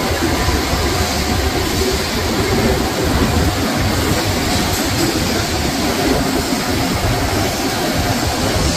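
Plastic film scrap grinder running steadily under load, a loud, even mechanical noise, as LDPE and PP film is fed in and cut into flakes.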